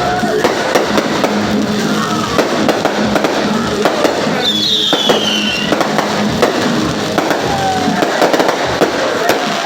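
Fireworks display going off in a rapid string of bangs and crackles, with a high whistle sliding down in pitch about halfway through.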